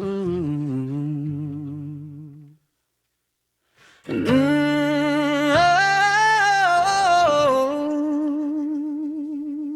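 Music: a wordless hummed vocal with vibrato over a held low drone fades out. After about a second and a half of silence, another hummed vocal line begins, rising and then falling in pitch over a steady drone.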